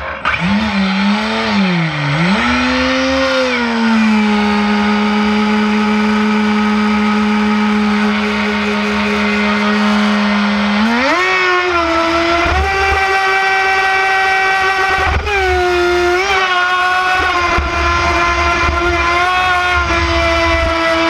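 WLtoys Arrow RC speedboat's electric motor, on a 3S lipo, whining steadily at speed. Its pitch wavers as the boat gets going, rises sharply about halfway through, dips briefly a few seconds later and then holds, with the rush of water spray beneath it.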